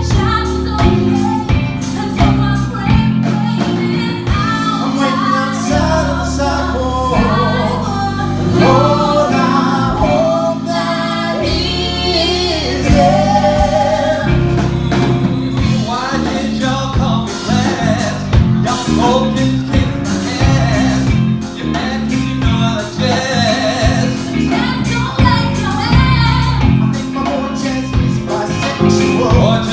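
A live musical-theatre song: voices singing a melodic line over a band with sustained low bass notes and steady drum hits.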